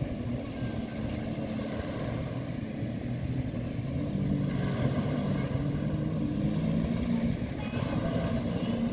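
Engine of a small watercraft running steadily out on the sea, getting louder about four seconds in.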